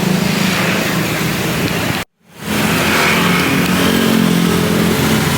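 A motor vehicle engine running close by, its pitch rising a little in the second half. The sound cuts out for a moment about two seconds in.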